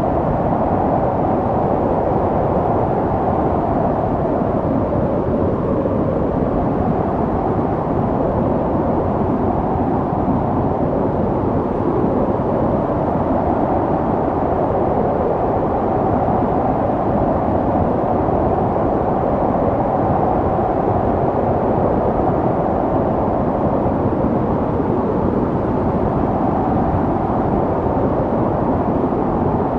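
Snowstorm wind blowing steadily: a low, even rushing noise that swells and eases slightly without ever dropping away.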